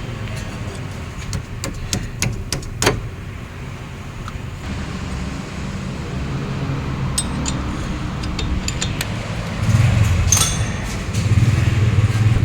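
Metal clinks and taps of hand tools over a steady low rumble, with a cluster of sharp taps in the first few seconds and lighter ticks later.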